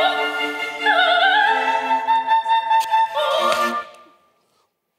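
Recording of a female opera soprano singing high held notes with a wide vibrato, stepping between a few pitches over a steadier instrumental accompaniment. It fades out about four seconds in.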